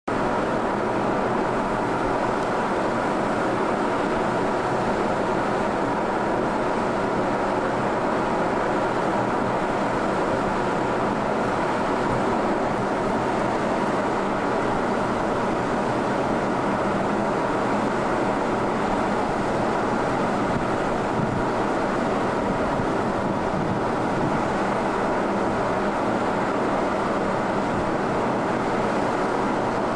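Car ferry Koningin Beatrix under way, its engines and machinery giving a steady, unchanging drone: a dense hum over an even rushing noise.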